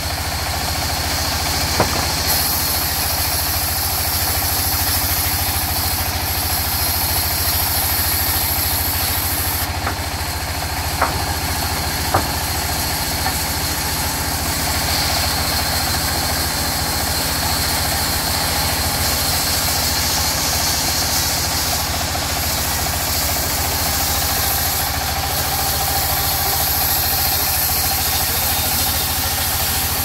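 A sawmill's vertical band saw running steadily, its blade cutting lengthwise through mahogany logs with a hiss that swells and eases as the wood is pushed through, over a constant low drone from the machine's drive. A few short, sharp knocks stand out.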